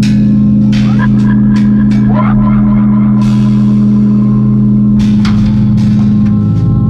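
Experimental drone-noise music: a loud steady low drone with scattered metallic strikes that ring out, and brief sliding tones about a second or two in.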